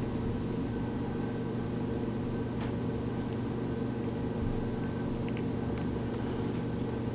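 Steady low machine hum of a running room appliance such as a fan or air conditioner, unchanging throughout, with a few faint light clicks from small parts being handled.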